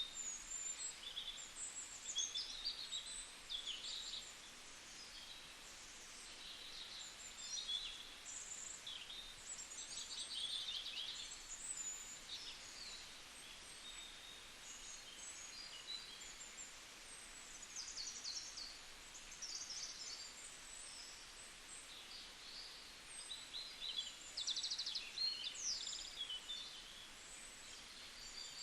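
Birds chirping and calling, many short high notes and quick trills coming in clusters, over a faint steady hiss.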